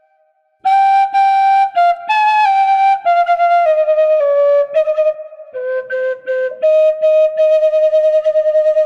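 Atenteben, a Ghanaian bamboo flute, playing solo a slow, solemn Ewe funeral dirge melody. After a brief pause, a phrase climbs briefly, steps down note by note, then settles into a long held note near the end.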